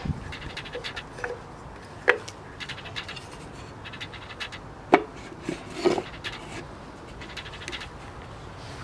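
Wooden blocks and a wooden lid knocking and rubbing as a small wooden puzzle box is packed and closed by hand: a few sharp wooden clacks, the loudest about five seconds in, with light scraping between them.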